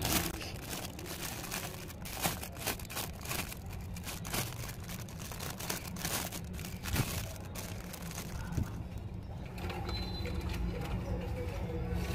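A clear plastic bag crinkling and rustling as a die-cast toy tractor is handled and pulled out of it. The crackles are irregular and densest over the first eight seconds or so, then thin out, over a steady low background rumble.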